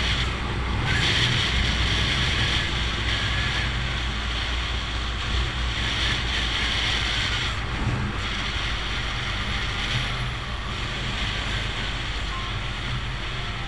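Wind rushing over the microphone on a moving motorcycle, over the steady running of the 1974 Honda XL250's single-cylinder four-stroke engine and road noise at cruising speed.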